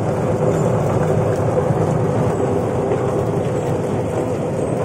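Onion-peeling machine running steadily, with its motor humming and water and peeled skins gushing from its outlet chute and splashing onto the floor.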